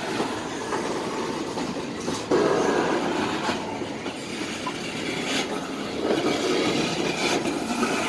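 Freight train cars rolling slowly past close by: a steady rumble of steel wheels on rail with a few sharp clacks, getting louder a little over two seconds in.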